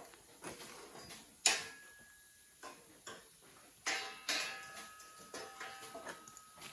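Steel pieces clanking as they are handled and set in place: a few sharp metal knocks, the loudest about one and a half seconds in and another pair about four seconds in, some followed by a short ringing tone.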